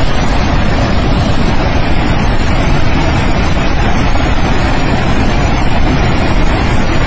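Loud, steady rushing of a river torrent in flood.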